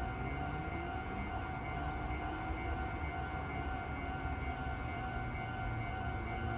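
Meitetsu electric train running through the junction. Its traction motors whine in slow rising and falling glides over a low rumble, under a steady high-pitched tone with overtones.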